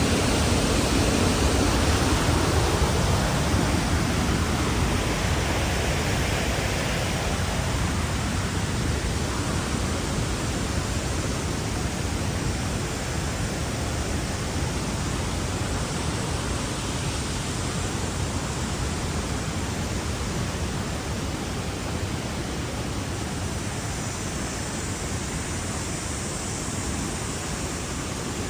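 Waterfall's steady roar: a dense, even rush of falling water that grows gradually a little quieter over the stretch.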